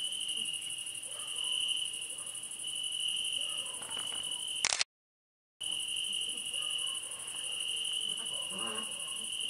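Crickets chirping in a steady unbroken chorus, high-pitched, with a fainter even higher trill above it. About halfway through there is a click and the sound cuts out completely for under a second, then the chorus resumes.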